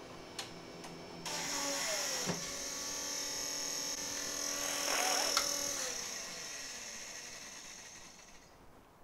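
JGAurora A7 3D printer's filament-feed stepper motor whining steadily as it drives filament into the machine. It starts about a second in and fades out near the end.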